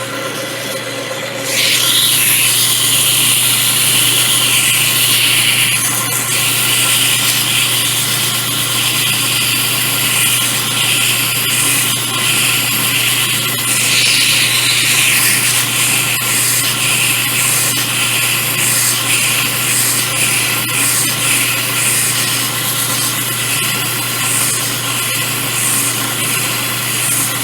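Lathe motor running steadily with a hum, spinning a rusted sawmill part while its surface is rubbed clean; a scratchy scouring noise starts about two seconds in and carries on, rising and easing as the work goes.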